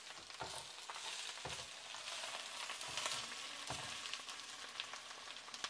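Baby spinach frying in hot oil in a skillet, a steady sizzle with fine crackles as it is stirred with wooden chopsticks, with a few dull knocks along the way.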